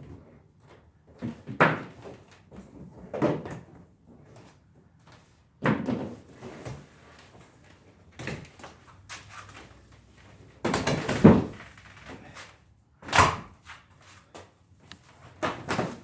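Handling the door of a homemade bicycle camper trailer: a series of about seven separate knocks and rustles, the longest and loudest a little past the middle.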